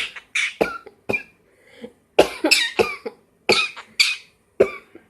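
Pyrrhura conure mimicking a cough: a series of about ten short, sharp coughs, some in quick pairs, with brief pauses between them.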